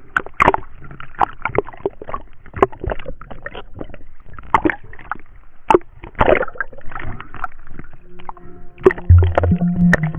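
Water sloshing and gurgling, with irregular splashes and bubble sounds, as a swimmer moves at the surface and goes under. Background music comes in about eight seconds in and grows louder near the end.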